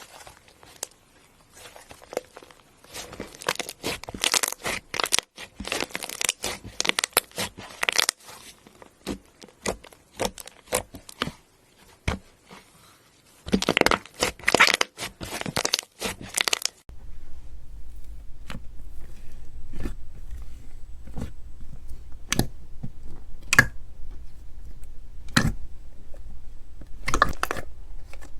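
Slime being squeezed and crushed, crunching and crackling. For about the first 17 seconds the crackle is dense; then it changes suddenly to sparser, separate crunches over a low steady hum.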